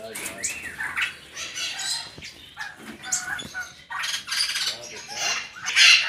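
Aviary of canaries and small finches chirping and twittering, many short high calls overlapping, with a louder harsh call near the end.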